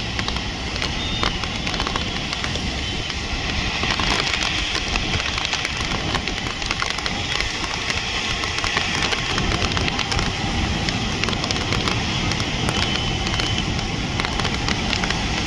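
Street noise of traffic on a rain-soaked road, a steady hiss with many scattered crackling clicks, typical of rain falling.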